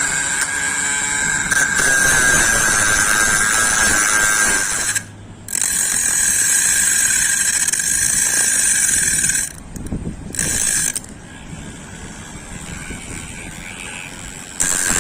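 Small electric motor of a homemade drill/angle grinder running with a steady high whine and a rattling mechanical noise. It cuts out for a moment about five seconds in and again around ten seconds, runs more quietly for a few seconds, then comes back up to full level near the end.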